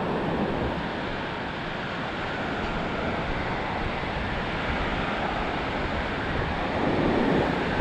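Ocean surf washing steadily onto the beach, with wind buffeting the microphone. The surf swells louder about seven seconds in.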